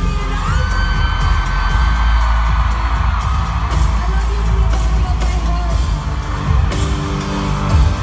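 Live pop concert music played loud in an arena and heard from within the crowd: a heavy, steady bass beat, with a singer holding one long note from about half a second in for about two and a half seconds.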